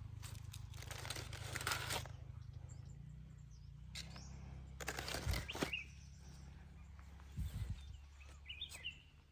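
Bromeliad leaves rustling in several short bursts as a hand handles the plants, over a steady low rumble on the microphone. A brief bird chirp near the end.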